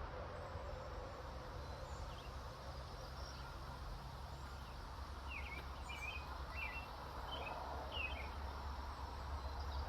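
Wild songbirds calling faintly: a few short, quick chirps about halfway through, then a rapid series of high notes starting right at the end, over a steady low rumble of distant traffic.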